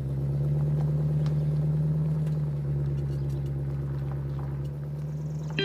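Pickup truck with a slide-in camper driving off, its engine running with a steady low hum that grows a little then slowly fades as it pulls away.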